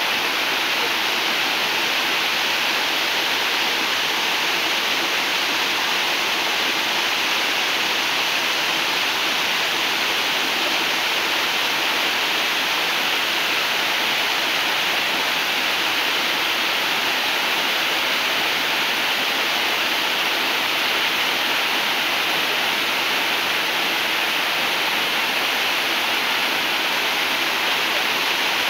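Mountain waterfall cascading over rock ledges: a steady, unbroken rush of falling water.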